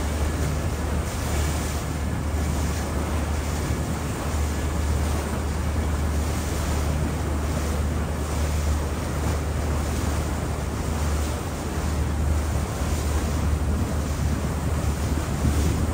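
Sightseeing river cruise boat under way, its engine giving a steady low hum, with wind noise on the microphone.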